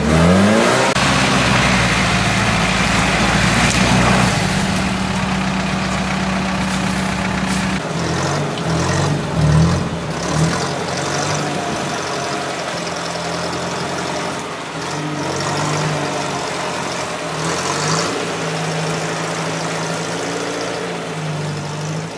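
UAZ-469 off-roader's engine running while stuck in deep mud. The revs rise at the start, hold a steady note for several seconds, then rise and fall several times.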